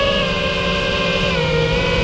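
Brushless motors of an FPV quadcopter (BotGrinder motors) whining at a nearly steady pitch under held throttle, easing slightly lower about a second in.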